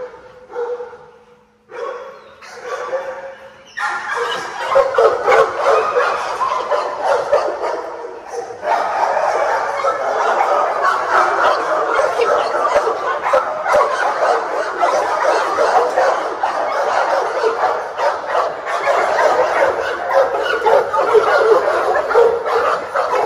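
Many kennel dogs barking and yipping at once in a continuous din. It starts a few seconds in and grows louder after about a third of the time.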